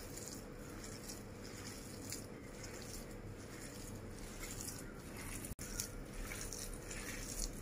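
Faint, repeated squishes of a hand kneading a soft mashed potato and minced chicken kabab mixture in a glass bowl, over a low steady hum.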